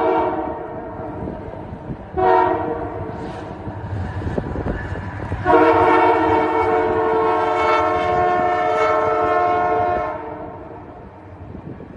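Diesel locomotive's multi-note air horn sounding a short blast about two seconds in, then a long blast of about four and a half seconds, with the tail of an earlier blast just at the start, over the low rumble of the passing train. The long, short, long run fits the end of a standard grade-crossing horn signal.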